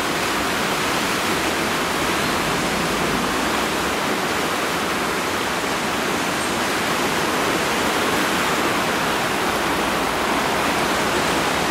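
River swollen by heavy overnight rain rushing over a weir, a steady wash of churning white water.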